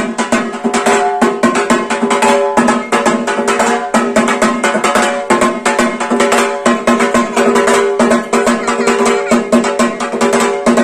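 Instrumental music: held melodic tones over a fast, dense percussion beat.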